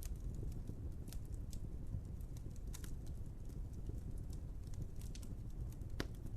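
Wood fire burning with a steady low rumble and irregular sharp crackles and pops, a louder pop near the end.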